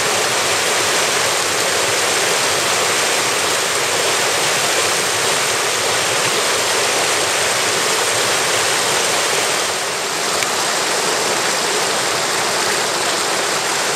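Mountain stream rushing over rocks through shallow riffles: a steady, loud rush of water.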